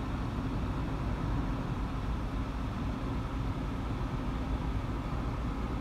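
Steady road and engine noise of a car driving on an expressway, a continuous low rumble heard from inside the car.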